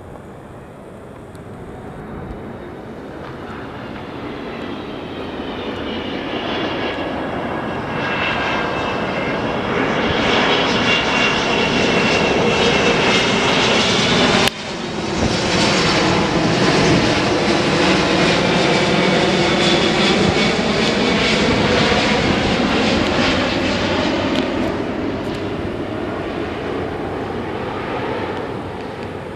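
Boeing 777-200 airliner passing low overhead on its landing approach. Its twin jet engines grow louder to a peak about halfway, then slowly fade, with whining tones that glide in pitch over the steady rush. The sound breaks off for a moment at the loudest point.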